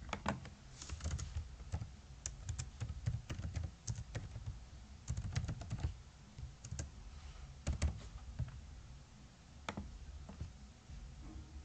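Quiet computer keyboard typing: irregular runs of keystroke clicks, thinning to a few separate clicks near the end.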